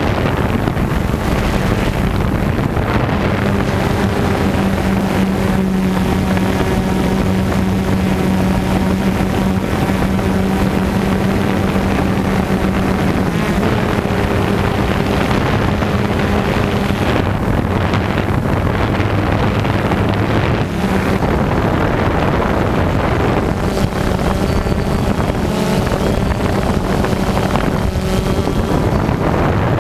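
DJI Phantom quadcopter's electric motors and propellers buzzing steadily, recorded close up by the camera it carries, with wind noise on the microphone. The hum's pitch shifts a few times as the drone manoeuvres.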